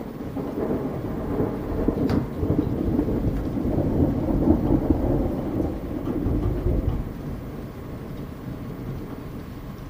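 A long roll of thunder that swells to a peak midway and fades, over steady rain. There is a single sharp click about two seconds in.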